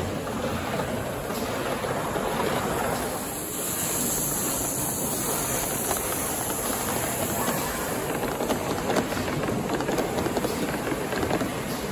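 Live steam gauge 1 model locomotive, a BR Britannia Pacific numbered 70013, running past with its coaches: a steady steam hiss with the rattle and clicking of wheels on the track. The hiss is loudest from about three and a half to seven seconds in, as the engine passes close.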